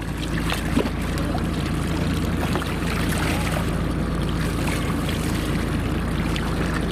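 A boat's engine running steadily as a low hum, under a wash of wind and water noise.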